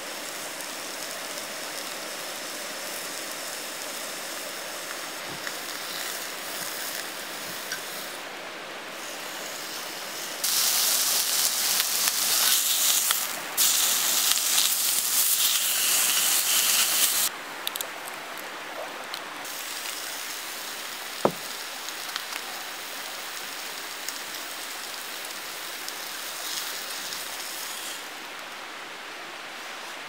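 A mountain stream runs steadily in the background. About ten seconds in, beef starts sizzling loudly in a hot cast iron skillet, a bright hiss lasting about seven seconds with a brief dip partway. About twenty-one seconds in, there is one sharp click.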